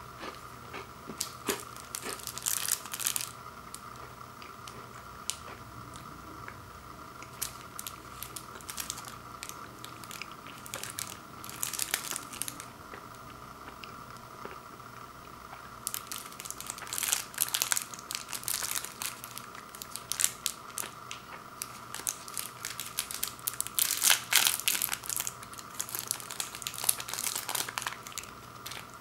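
Plastic wrappers of fun-size candy bars crinkling and tearing open in the hands, in bursts of crackling with short pauses between.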